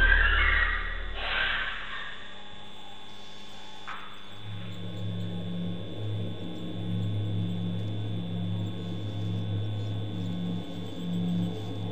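Steady electrical mains hum with a faint high whine; the low hum grows stronger about four seconds in, after a louder sound fades away in the first couple of seconds.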